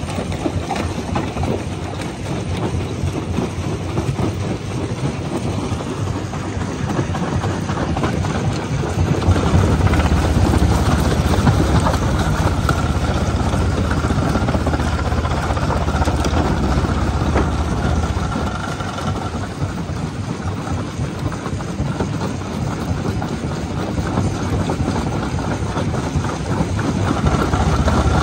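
Rock crusher running and crushing red rock: a steady machine drone under a dense crackle of grinding, cracking stone. It grows louder about nine seconds in and eases back around eighteen seconds.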